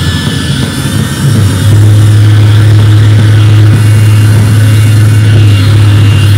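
Loud experimental electronic noise from laptops and a modular synthesizer: a dense droning wall of sound with a deep steady hum that swells up about a second and a half in and then holds.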